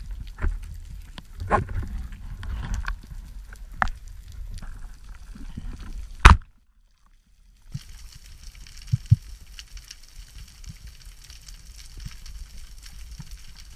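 Underwater sound through a speargun-mounted camera's housing: low rumbling water noise with scattered clicks and knocks as the diver moves. About six seconds in comes one loud sharp crack, a short dead silence follows, and then a steady high hiss with faint crackling.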